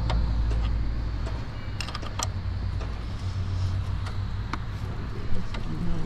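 Short metallic clicks and taps from a dirt bike's rear axle and hand tools being worked loose to take off the rear wheel, over a steady low rumble that eases about a second and a half in.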